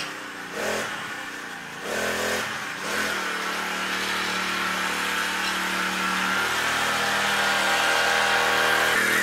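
Small petrol engine of a motorised esky (ride-on cooler scooter) revving in a few short bursts, then running steadily and growing louder as it rides past.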